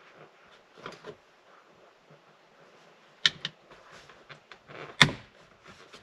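A few scattered light clicks and taps of a bent metal pick working against the door latch inside a 1987 Porsche 944's passenger door, prodding at the release tab of a latch that is jammed shut. The sharpest click comes about five seconds in.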